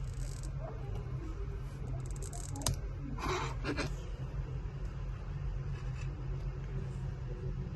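Small tool and hand-handling sounds on a laptop's parts during disassembly: light clicks, one sharp click a little before the middle, then a short scrape. A steady low hum runs underneath.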